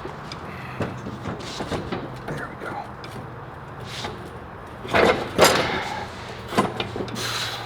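Workshop handling noises: scattered knocks and clatter, with two loud bangs about five seconds in and a short hiss near the end, over a steady low hum.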